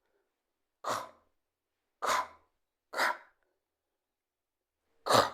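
A person's voice making short, breathy, unvoiced consonant sounds, four separate puffs about a second apart: phonics sounds for the word 'squirrel' spoken on their own, without any vowel.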